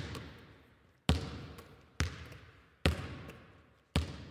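A basketball bouncing slowly on a hard floor, four bounces about a second apart, each echoing and fading out in a large, empty hall.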